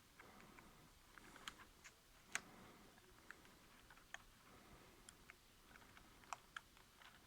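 Faint, irregular small clicks and taps of plastic parts and a keyboard being handled while a replacement keyboard is fitted into a Lenovo ThinkPad T440p laptop, with a sharper click about two and a half seconds in.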